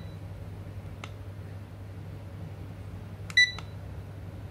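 Wooden cube LED alarm clock giving one short, high electronic beep about three seconds in as its DOWN button is pressed, confirming that sound control mode is switched on.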